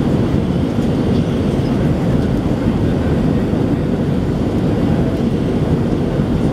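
Inside the cabin of an Airbus A320-200 climbing out after takeoff: the steady low rumble of its jet engines and the air rushing past the fuselage, unchanging throughout.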